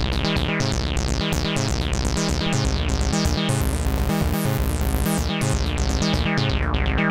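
Sound Object #5 synthesizer playing a fast repeating techno bassline, each note with a falling filter sweep. The filter is turned by hand as it plays, and the sound brightens around the middle.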